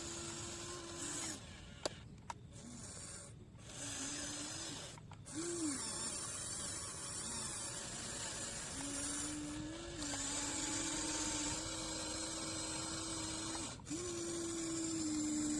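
Small electric motors of an RC excavator whining as it digs, starting and stopping several times and shifting pitch as the arm and bucket move, with a few sharp clicks.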